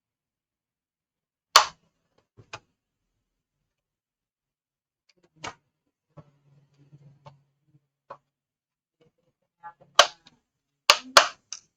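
Scattered sharp clicks and knocks of a laptop and small tools being handled on a workbench, a few seconds apart, with a quick run of several clicks near the end.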